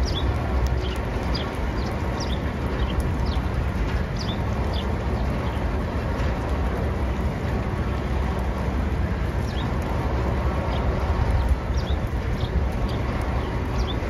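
Small birds chirping in short, high, quick chirps, in bunches near the start and again near the end, over a steady low rumble.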